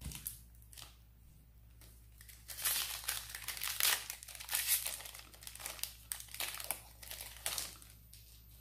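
Foil wrapper of a Magic: The Gathering collector booster pack crinkling as it is worked open by hand, a dense run of crinkling from about two and a half seconds in, dying away near the end.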